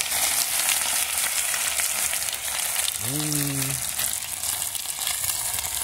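Floured cocoroca fish pieces sizzling and crackling in hot oil in a pan, with an even, steady frying hiss. A short hum of a voice cuts in about three seconds in.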